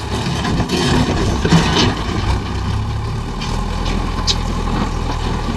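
Diesel engine of a JCB earthmoving machine running steadily with a low drone, a few brief sharper sounds on top.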